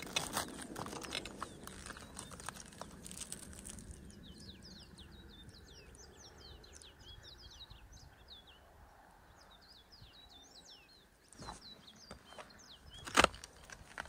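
A small bird twittering: a quick run of short, high chirps lasting several seconds. Footsteps crunch on rock around it, with one sharp, loud crunch near the end.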